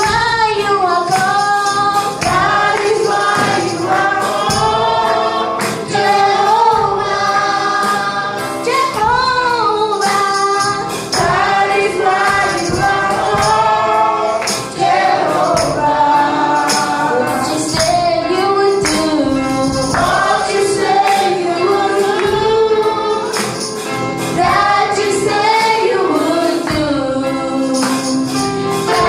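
Congregational gospel worship singing with a tambourine shaken and struck along to the beat.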